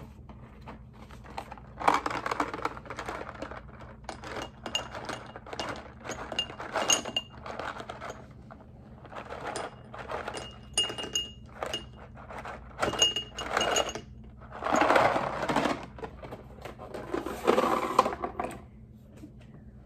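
Whoppers malted milk balls poured from their cardboard box into glass dessert bowls: bursts of small hard balls clattering and clinking against the glass, which rings briefly. There are about six pours, the loudest two near the end.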